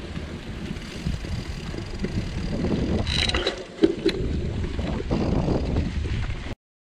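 Wind buffeting the microphone of a camera on a moving mountain bike, over the rumble and rattle of its tyres on a dirt path. There is a sharp knock about four seconds in, and the sound cuts off suddenly near the end.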